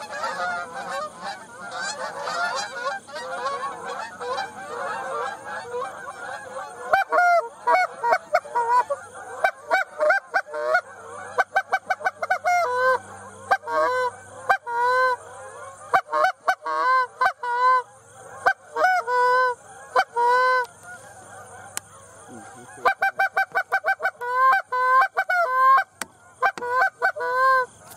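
A flock of Canada geese honking: many calling over one another at first, then from about six seconds in, loud separate honks close by, coming in quick runs with short pauses.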